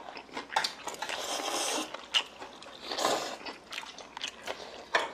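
Cutlery clicking against bowls and plates during a meal, with a noisy wet stretch of eating or slurping noodles about a second in and again around three seconds.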